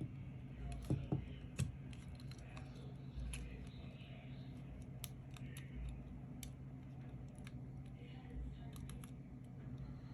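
Small plastic clicks and taps as the PS5 controller's ribbon cables are pushed into their connectors on the board, with a few louder knocks about a second in.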